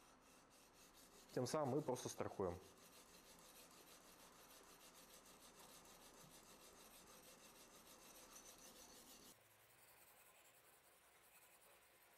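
Coarse Venev 100/80 diamond stone of a guided knife sharpener stroked along a vanadis 10 steel blade edge: a faint, steady rasping scrape, coarse grinding to remove chips and raise a burr. The high hiss of the scrape drops away about nine seconds in. A brief voice is heard about a second and a half in.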